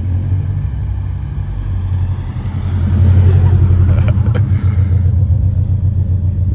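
2022 Subaru BRZ's 2.4-litre flat-four engine running while driving: a steady low drone that grows louder about three seconds in.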